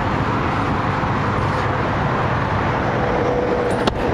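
Steady rumble of road traffic, with one sharp click shortly before the end.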